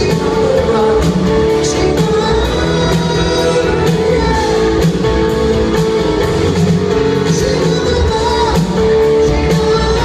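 Live rock band playing a song: electric guitars, bass and drums, with a male lead vocal singing over them.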